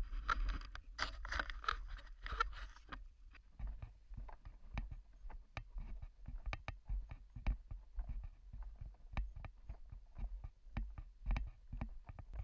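Irregular knocks, clicks and scuffs over a low rumble, the kind of handling and movement noise a camera picks up as someone moves over rock. For about the first three seconds there is also a faint, hazy sound that could be a voice.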